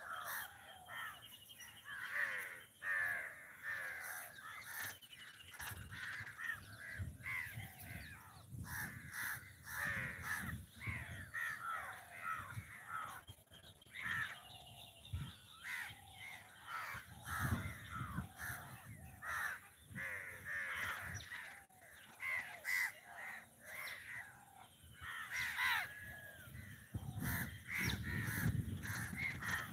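A flock of crows cawing, many short calls overlapping without a break, with patches of low rumbling noise underneath now and then.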